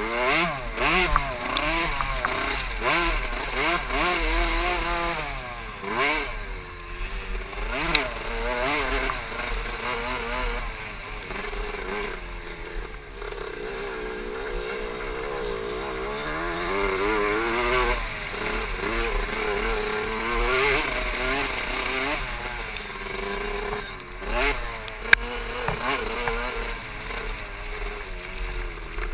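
KTM SX 65's 65cc single-cylinder two-stroke engine under hard riding, its pitch rising and falling over and over as the throttle is opened and closed, heard from a helmet-mounted camera. A couple of sharp knocks stand out, one about eight seconds in and one near the end.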